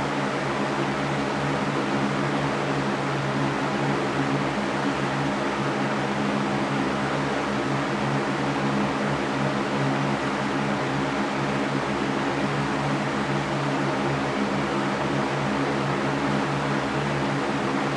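Electric fan running steadily: an even whooshing air noise over a low motor hum.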